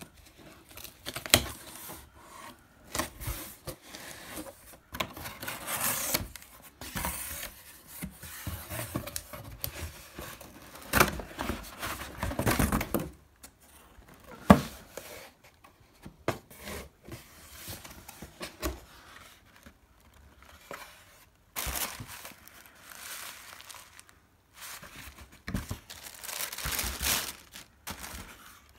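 Cardboard shipping box being torn open and its packaging handled: irregular tearing and crinkling of cardboard and paper, with two sharp knocks.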